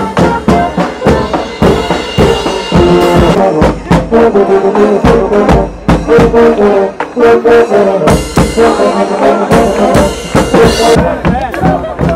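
A street brass band playing live: brass horns and a sousaphone over a steady beat from a bass drum, snare drums and cymbal.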